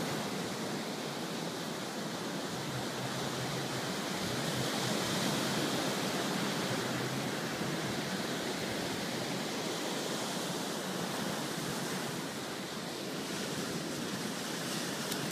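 Ocean surf breaking and washing up a sandy beach: a steady, even rushing hiss.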